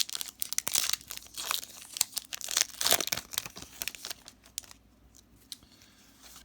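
Foil wrapper of a Pokémon booster pack being crinkled and torn open, a dense crackle for about four and a half seconds that then dies down to a few faint crinkles.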